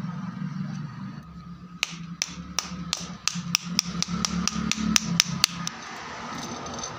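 A metal rod tapping a seal into its seat in the centre of an aluminium Hero Splendor Plus engine cover. About fifteen sharp metallic taps start about two seconds in, quicken, and stop about a second and a half before the end.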